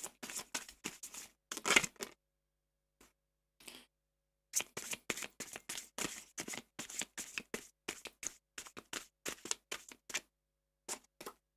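A tarot deck being shuffled by hand: rapid patters of cards clicking against each other, a first run of about two seconds, then a longer run from about four and a half to ten seconds in after a short pause.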